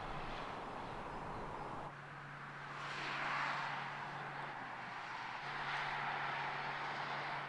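Audi A6 ultra driving by on an open road: tyre and road noise swelling about three seconds in and easing off, then rising again, over a steady low hum.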